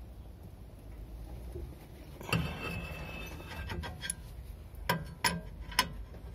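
A few sharp metallic clicks and clinks at irregular intervals, with a brief squeak after the first, as the centre screw of a three-armed brake-disc puller is turned against a rust-seized brake disc.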